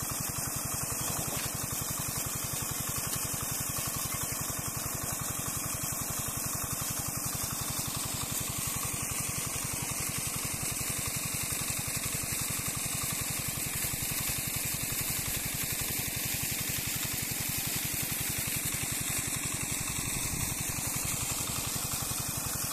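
Small single-cylinder diesel engine running steadily at an even, fast firing beat, driving a centrifugal water pump whose outlet gushes a heavy jet of water splashing into the pond.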